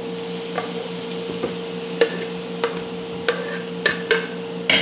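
Knife blade scraping diced raw chicken off a wooden cutting board into a hot stainless electric skillet, with scattered clicks of the blade and dropping pieces and a louder scrape near the end; the chicken starts sizzling faintly in the oil.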